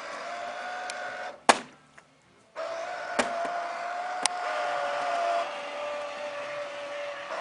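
Small electric motor of a toy motor boat running with a steady high-pitched whine. A sharp click about a second and a half in is followed by about a second of near silence, then the whine starts again. Two more sharp clicks follow, and the pitch drops slightly a bit past the middle.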